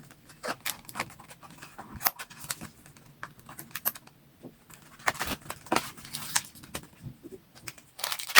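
Plastic packaging being opened by hand: irregular crinkling rustles and small sharp clicks as the toy accessories are unwrapped, with a louder click near the end.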